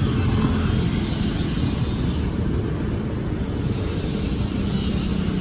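Steady low rumble of road traffic and running engines. A faint high tone rises and falls briefly near the middle.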